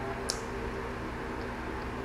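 Mouth sounds of a person chewing food: a few short wet clicks and smacks, one sharper about a third of a second in, over a steady low background hum.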